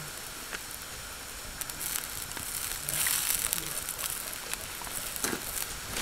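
Wood fire crackling in a Solo Stove Ranger fire pit, with a wok of vegetables and sauce sizzling and bubbling on top of it. The hiss swells about three seconds in.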